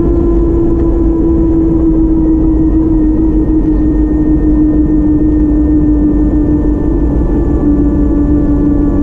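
Steady vehicle running noise: a low rumble with a humming tone that slowly drops in pitch.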